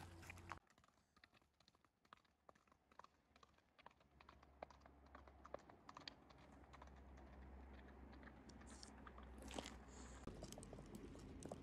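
Near silence, with faint, irregular ticks and clicks scattered through it.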